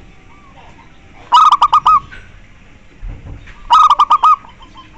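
Zebra dove (perkutut) singing: two phrases, each a quick run of about five short cooing notes.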